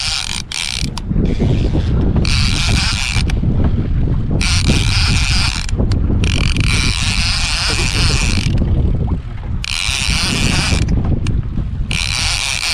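Okuma SLX lever-drag trolling reel being cranked hard in spells of a second or two with short pauses between, a high gear rattle each time, as a hooked fish is pumped and reeled in. A steady low rumble runs underneath.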